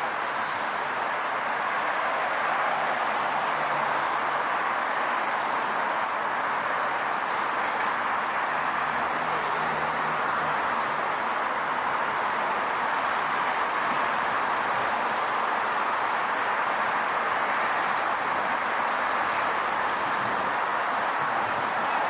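Steady noise of heavy city street traffic, the tyres and engines of passing cars, with a thin high-pitched whine that comes in briefly twice partway through.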